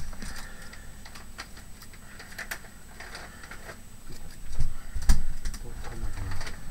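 Irregular light clicks and taps of small craft items being handled on a tabletop, with two heavier knocks about four and a half and five seconds in, the second the loudest.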